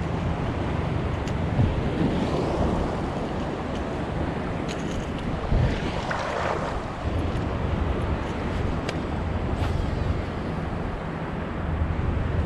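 Ocean surf washing in the breakers, with wind buffeting the microphone; waves swell louder about two seconds in and again around six seconds in.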